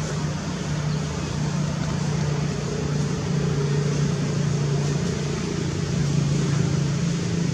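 Steady low mechanical drone of a running motor, with a constant hiss over it.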